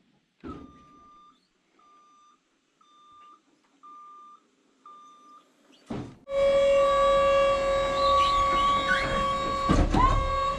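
Five evenly spaced electronic warning beeps, about one a second, each the same pitch. About six seconds in, a much louder steady sound of fixed pitch sets in, with a brief rise in pitch near the end.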